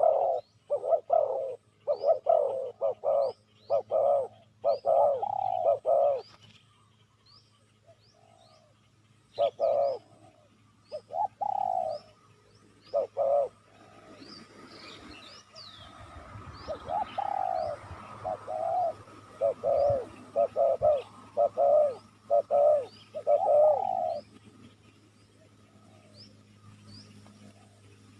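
Spotted dove cooing in repeated phrases of short low coos, with pauses of a few seconds between bouts. Faint short high chirps from a small bird recur in the background.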